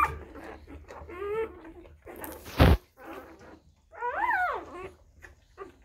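Newborn Tibetan Mastiff puppies whimpering: a few thin, high cries that rise and fall in pitch, the longest about four seconds in. About halfway through, a brief loud noise briefly covers everything.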